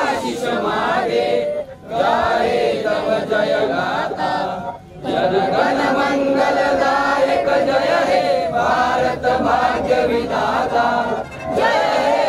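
A crowd of men and boys chanting in unison, led by a man on a microphone, in phrases of a few seconds with short breaks about two and five seconds in.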